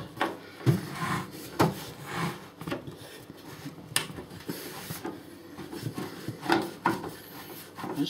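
A screwdriver scraping and clicking in a screw on a microwave oven's sheet-metal casing as the screw is worked loose, in irregular scrapes with one sharp click about halfway through.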